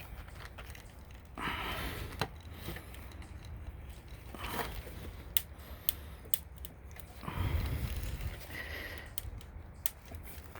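Spline roller forcing rubber spline and thick pet screen mesh into a screen door frame's channel: irregular crunching and scraping strokes with scattered sharp clicks, the heavy mesh making it hard work.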